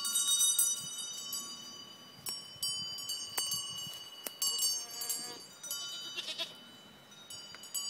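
Goat collar bells clanking as the goats move, each stroke ringing on in steady tones, several times. A goat bleats briefly about five seconds in.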